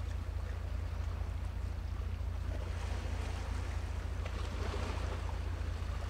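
Steady low rumble of wind buffeting the microphone, with the wash of waves swelling and fading in a hiss above it.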